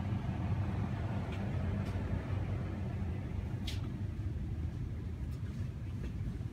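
Steady low hum of a grocery store's background noise, with a few faint clicks.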